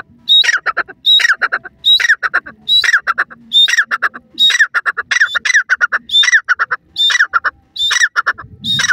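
Female grey francolin (teetar) calling over and over, about eleven phrases in quick succession. Each phrase is a high note that sweeps down into a rapid run of short, clipped notes. The calling stops near the end.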